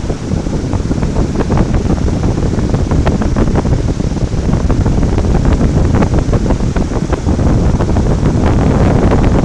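Heavy waterfall, Courtallam Main Falls, pouring steadily onto rock in a loud, continuous rush of water, with wind buffeting the microphone.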